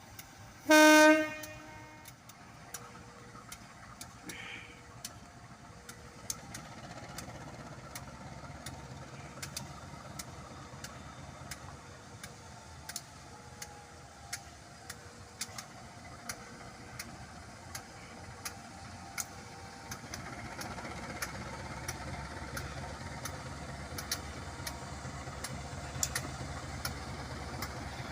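A train horn gives one short, loud toot about a second in. Then a locomotive's low engine rumble builds, growing louder about two-thirds of the way through, with sharp scattered clicks throughout.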